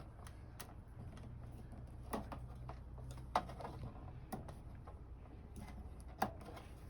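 Scattered, irregular light clicks from handling the camper refrigerator's control knob and panel, the sharpest about three and a half and six seconds in, over a low steady hum.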